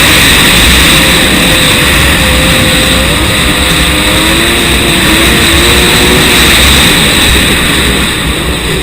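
Loud, steady running of a Kawasaki SXR 1100 stand-up jet ski's two-stroke engine under way, with a hissing rush over it; the engine note wavers a little in pitch.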